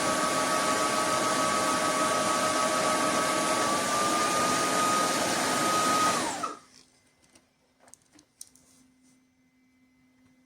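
Roborock F25 wet-dry vacuum's motor running with a steady whine during its self-cleaning cycle, then winding down and stopping about six seconds in. A few faint clicks and a low hum follow.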